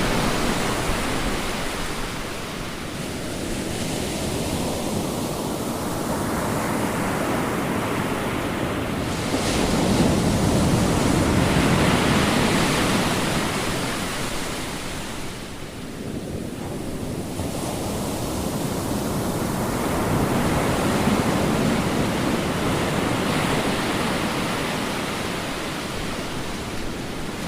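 Ocean waves surging and washing on the shore, the hiss swelling and ebbing over several seconds at a time. One wave builds to the loudest surge about a third of the way in, then the sound sinks briefly a little past the middle before the next waves swell again.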